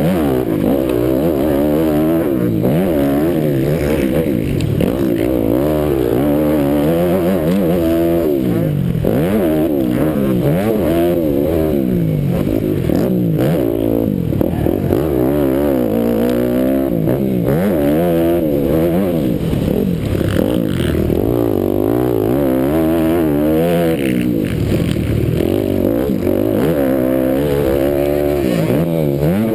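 Motocross dirt bike engine heard close up from the bike carrying the camera, revving up and dropping back over and over as the throttle opens and closes through jumps and turns.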